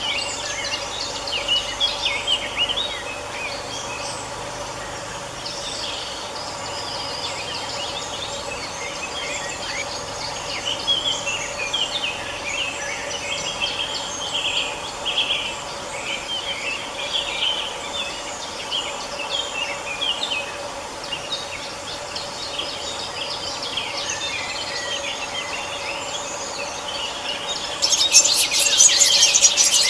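Many birds chirping and calling over a steady low hum. Near the end the sound switches abruptly to a louder, denser chattering of a flock of small birds.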